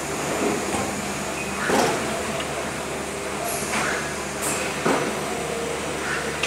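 Aquarium bubbles: a steady rushing hiss of water, with a louder gurgle or pop about once a second at uneven intervals, the strongest about two seconds and five seconds in.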